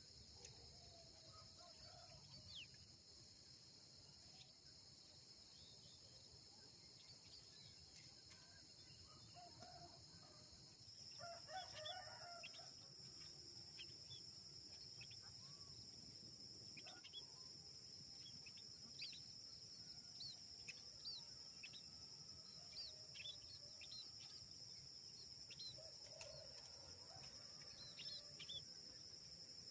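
Faint outdoor ambience: a steady high insect drone, a rooster crowing once about 11 seconds in, and short high bird chirps repeated through the second half.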